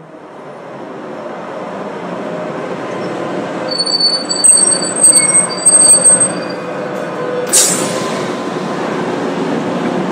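Tram running on its rails, heard from inside the car: a steady rumble, with the steel wheels squealing in high, thin tones for a few seconds around the middle, then a short hiss.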